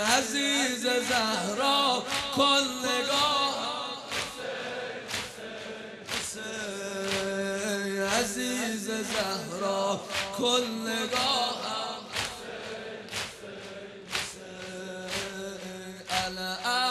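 Male reciter singing a Persian nohe (Muharram lament) with a crowd of men chanting along. Under the singing, the crowd's chest-beating (sineh-zani) strikes land together in a steady beat of about one a second.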